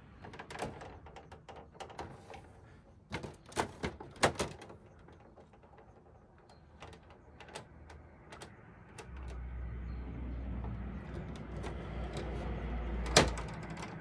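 Plastic clicks and knocks from the hinged front panel and casing of a wall-mounted air conditioner's indoor unit being handled. A cluster of sharp knocks comes a few seconds in. Later a low rumble runs for about four seconds and ends with one loud snap.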